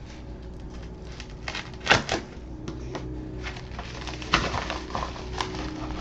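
Clicks, taps and rustles of a small package being handled, with two sharper knocks about two and four and a half seconds in.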